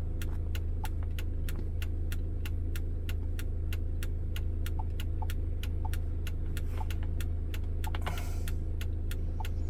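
VW Beetle 1.8-litre turbo four-cylinder engine idling with a steady low hum and an even, light ticking about four times a second. A brief rustle comes about eight seconds in.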